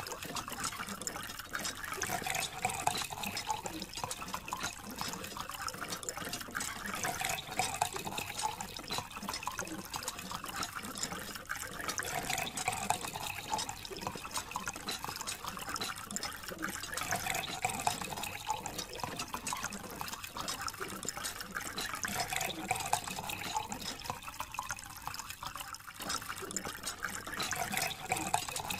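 Water running steadily from a thin plastic tube and splashing onto sand-covered plastic toy vehicles.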